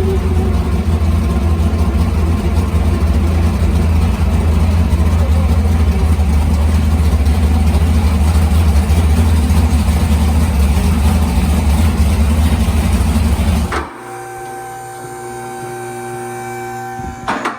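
Big-block Chevy V8 of a race mud truck running loud and steady with a deep low rumble, stopping abruptly near the end; a quieter stretch with steady tones follows.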